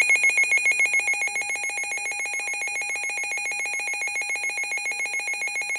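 A weather radio's built-in alert alarm sounding: a fast electronic trill, pulsing about ten times a second and alternating between two high pitches. It is set off by the severe thunderstorm warning's data header.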